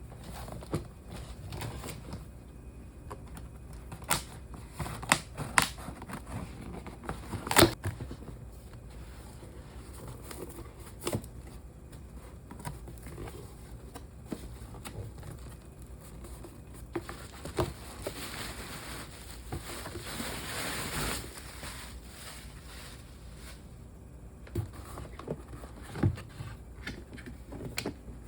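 Objects being handled on a surface: scattered clicks and knocks, the loudest about seven and a half seconds in, with a few seconds of crinkly rustling about eighteen seconds in.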